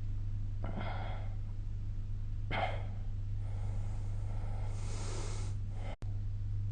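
A sleeping person snoring: short snorting breaths about a second and two and a half seconds in, then a longer breathy exhale, over a steady low hum.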